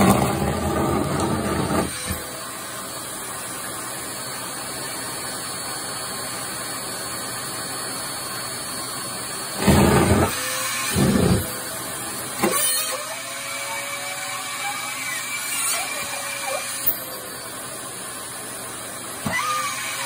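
Vacuum cleaner hose running steadily. Its suction noise surges louder when cloth is drawn into the nozzle: about the first two seconds, twice around the middle, and again near the end, when a rubber glove is pulled in.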